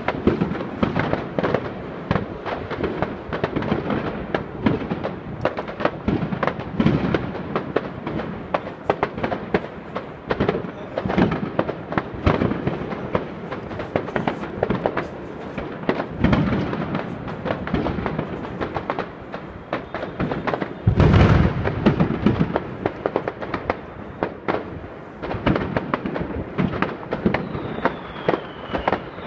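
Fireworks going off in a continuous barrage of bangs and crackles, with one louder, deeper boom about 21 seconds in.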